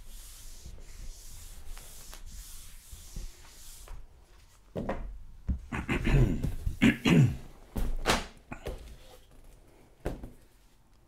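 A whiteboard eraser scrubbing across a whiteboard, a hissy rubbing for about the first four seconds. Then, about five seconds in, several louder bumps mixed with short voice-like sounds for a few seconds, which fade away near the end.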